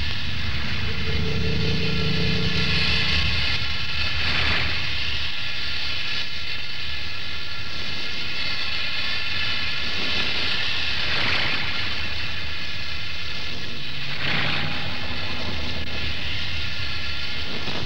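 Steady rumbling rush of noise from a volcanic eruption's lava vents and steam, swelling briefly a few times.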